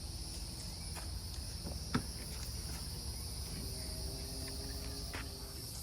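Steady, high-pitched drone of insects, with a single sharp click about two seconds in.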